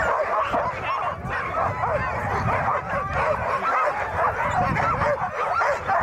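A pack of sled dogs yelping and barking all at once, many voices overlapping in a continuous clamour, the excited noise of a harnessed team waiting to run.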